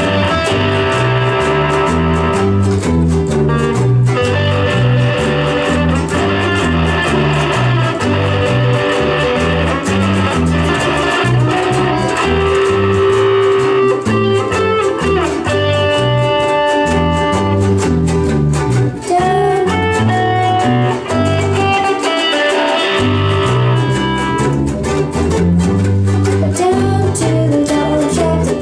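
A small band of three-string guitars playing a blues: strummed and picked plucked-string notes over a repeating low riff that steps up and down.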